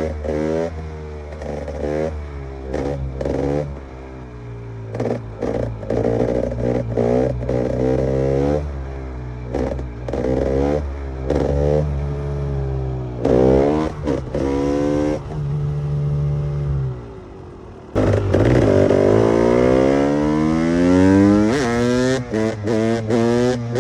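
KTM EXC 300's single-cylinder two-stroke engine revving in repeated throttle blips, its pitch rising and falling over and over. About three-quarters of the way through it suddenly gets louder, the pitch dropping and then climbing again.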